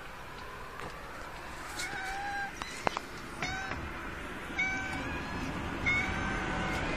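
A cat meowing four times, each a short, high, steady-pitched mew about a second apart. There is a single sharp click near the middle.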